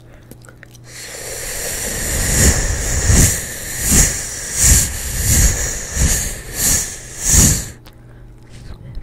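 Hands rubbing and brushing right against the microphone: a loud rushing hiss that swells about eight times, with a low rumble on each swell, and stops abruptly near the end.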